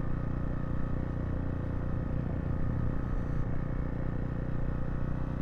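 Zontes T2 350 motorcycle engine running steadily while riding, a continuous low rumble.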